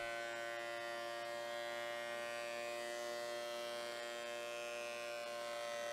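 DeWalt benchtop thickness planer running, a steady, even motor hum that stays low and unchanging.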